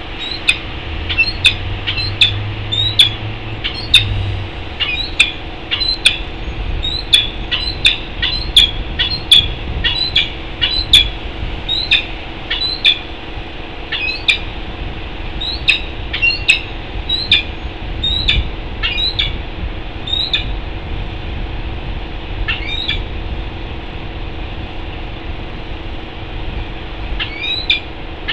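Short, sharp bird calls, about one or two a second, each dropping slightly in pitch, over a steady hum. The calls thin out after the middle and pick up again near the end.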